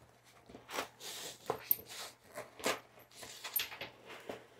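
White foam padding insert being pulled out of a zippered bag, rubbing and scraping against the bag's inside in a run of irregular rustles and squeaky scrapes.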